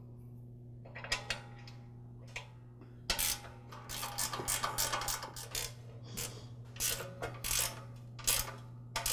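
A ratchet socket wrench clicking in quick runs as the bolts of a tiller's lower belt guard are tightened. It starts about three seconds in, after a few light metal clicks from the bolts being fitted by hand.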